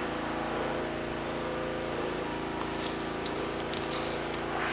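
A distant pressure washer's motor running steadily, a constant droning hum. A few brief high crackles come about three to four seconds in.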